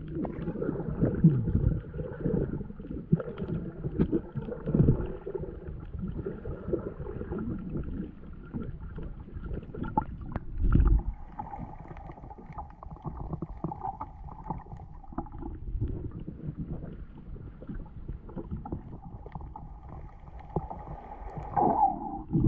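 Muffled underwater sound from a camera held below the surface of shallow sea water: irregular low rumbling and sloshing of water against the camera, with a louder knock about halfway through. A faint steady hum comes in after it.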